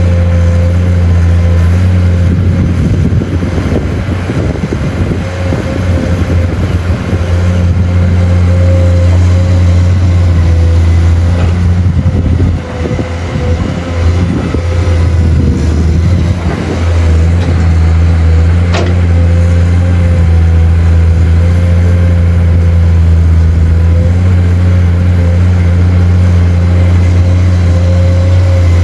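Excavator's diesel engine running steadily under load with a constant whine, while soil is dug and loaded into a truck; a stretch of crackling and scraping in the first half, easing off after about 17 seconds.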